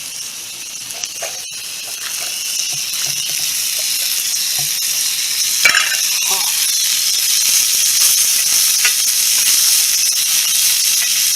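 Food sizzling and frying in a mess kit over a campfire, a steady hiss that grows louder a couple of seconds in, with one sharp knock a little past halfway.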